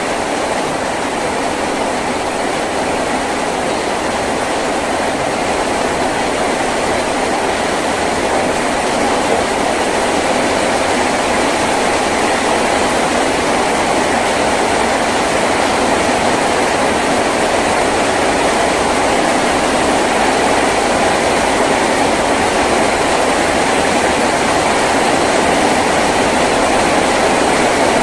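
Heavy rain drumming steadily on a tin roof, an even hiss and patter with no breaks, slowly growing a little heavier.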